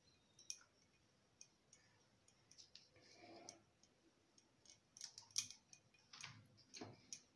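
Near silence with faint, scattered light clicks and taps, most of them about five to seven seconds in, from hands working a piece of rice dough with a small red mould.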